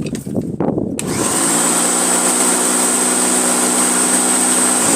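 Electric Flymo lawnmower's motor switched on about a second in, spinning up with a high whine and then running steadily until the end: the mower works again after its power cord was replaced. A little handling clatter comes just before it starts.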